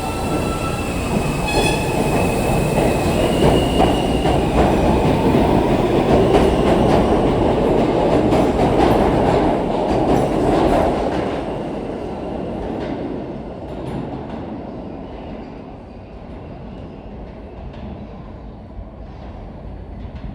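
R160 subway train running through the station: a heavy rumble of wheels on rail that swells to its loudest mid-way and then fades, with thin high wheel squeal near the start and a run of clicks over the rail joints as it goes.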